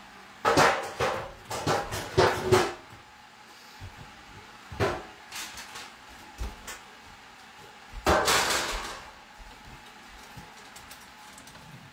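Kitchen clatter of pans and utensils being handled at a stove: a run of knocks and clinks over the first few seconds, a single knock near the middle, and a louder clatter lasting about a second, some eight seconds in.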